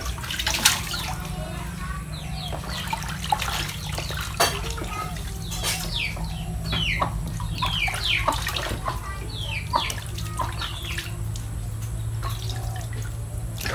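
Hands swishing and rinsing mushrooms in a plastic basin of water, with repeated small splashes and sloshing. Birds chirp throughout in short falling calls, most often in the middle stretch.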